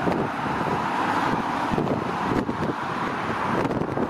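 Bombardier Dash 8 Q400's two Pratt & Whitney PW150A turboprops at takeoff power during the takeoff roll, heard from afar as a steady rushing noise. Wind buffets the microphone throughout.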